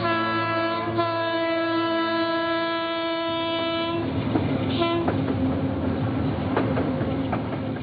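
Diesel locomotive's horn sounding one long steady chord that cuts off about four seconds in. Then comes the rumble of the train running over the bridge, with irregular clicks of wheels over rail joints and a brief horn note about a second after the long blast ends.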